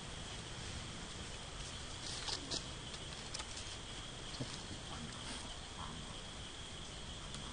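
Steady high insect drone, with a few light rustles and clicks of dry leaf litter as baby macaques shift about on the ground.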